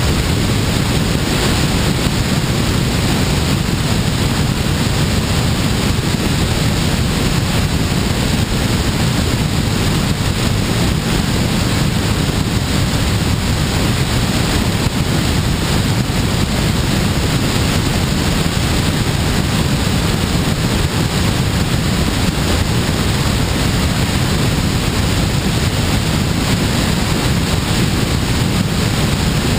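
Steady rush of airflow buffeting the microphone of a camera mounted on a glider's wing in flight. The noise is heaviest in the low end, with a hiss above it, and stays even throughout.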